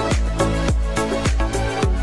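Background music with a fast, steady beat and deep bass.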